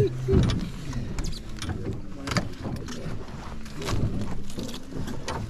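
Irregular knocks and light rattles around a landing net on a small boat's deck, over a steady wash of water lapping at the hull.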